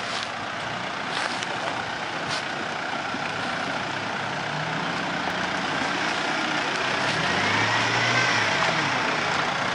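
Jeep Wrangler Rubicon's engine pulling the vehicle through deep mud, its revs rising about seven seconds in, with the mud-terrain tyres churning and splashing through the mud rut.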